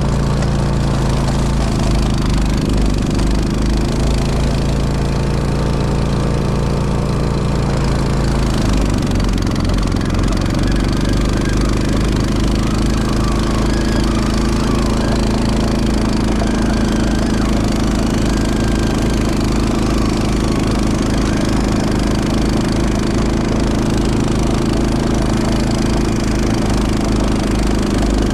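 Honda snowblower's single-cylinder engine running steadily while clearing a driveway; its note shifts about nine seconds in.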